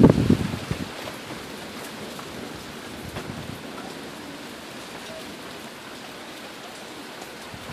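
Steady rain falling during a thunderstorm, with a brief loud low rumble in the first second.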